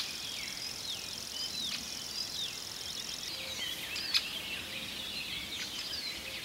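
Outdoor woodland ambience: many small birds chirping over a steady high trill that stops about three seconds in. A single sharp click comes about four seconds in.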